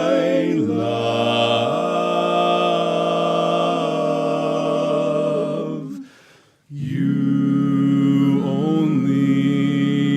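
Men's vocal quartet singing a cappella in close harmony, holding sustained chords. There is a brief break about six seconds in, then a long final held chord ending the song.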